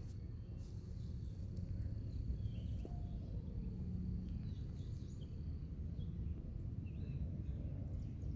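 Rural outdoor ambience: a steady low rumble, faint scattered bird chirps, and a thin steady high tone that stops about six seconds in.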